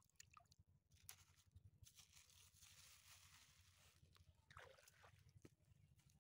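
Near silence, with a few faint clicks and a soft scraping hiss from wet sand being handled and pressed into a cloth.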